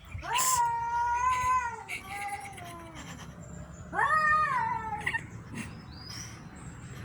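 Domestic cat giving two long, drawn-out meows: the first lasts about two seconds, and the second starts about four seconds in and lasts about a second.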